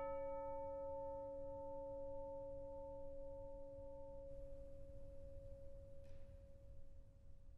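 A single struck chime ringing out with several bell-like overtones and slowly dying away, the higher overtones fading first and the lowest lingering longest.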